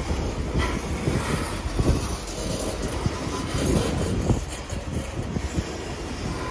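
Loaded coal train's steel gondola cars rolling past at close range: a steady low rumble of wheels on rail with irregular clanks and knocks.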